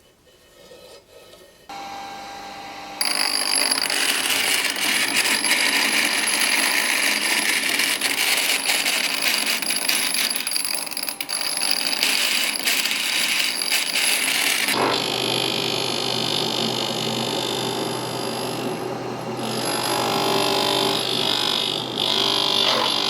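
A power grinder grinding steel: it starts about three seconds in and runs loud and steady, with a harsh hiss and a thin high whine, and its tone changes at about fifteen seconds in.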